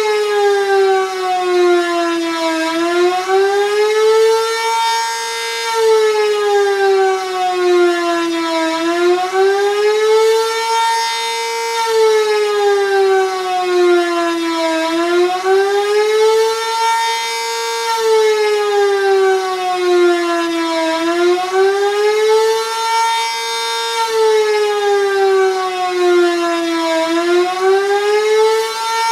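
Sentry 3V8 electromechanical warning siren sounding a fast wail or attack signal during a tornado siren test, its pitch rising and falling smoothly and repeatedly, about once every six seconds.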